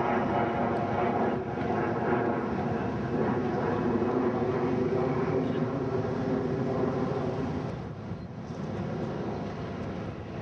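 Steady engine drone for about eight seconds, then easing off and fading.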